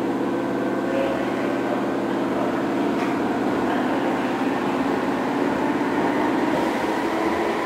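Keihan 2600 series electric train running steadily, heard from inside the passenger car: an even hum of motors and gears over wheel and rail noise.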